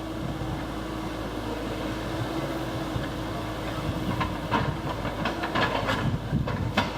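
Excavator running steadily while it works lava rock, with a run of sharp knocks and clatters in the second half.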